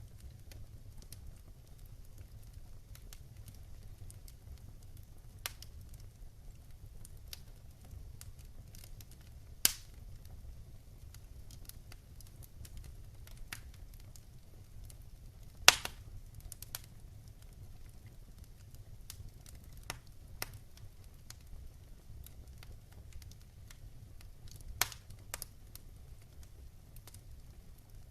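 Fire pit fire crackling: scattered sharp pops and snaps over a low steady rumble, with two louder pops about ten and sixteen seconds in.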